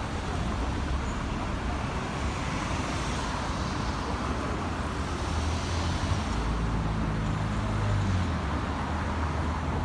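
Road traffic: cars moving with steady engine and tyre noise, and a lower engine hum from a nearby vehicle growing stronger about six seconds in.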